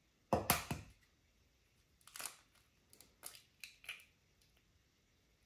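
An egg cracked on the rim of a bowl with a short crunchy burst about half a second in, then a few faint clicks of eggshell as the yolk is passed between the shell halves to separate it from the white.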